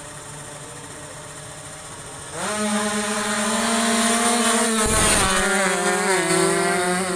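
Two-stroke drag-racing motorcycle engine revving hard. It comes in suddenly and loudly about two seconds in, climbs in pitch, then holds at high revs with a few small shifts in pitch, over a fainter engine hum before it.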